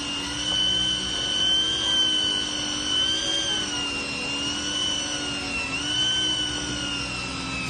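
Electric fishing reel's motor winding in line under load: a steady high whine that wavers slightly in pitch, dipping briefly about five and a half seconds in.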